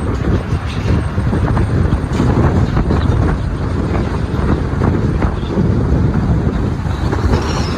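Steady road and engine rumble inside a moving vehicle, with some wind noise on the microphone.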